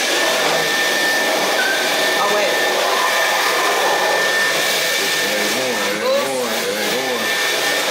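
Dyson V12 cordless stick vacuum running steadily, its motor giving a high, even whine over a rushing airflow as the floor head is pushed across a hard laminate floor.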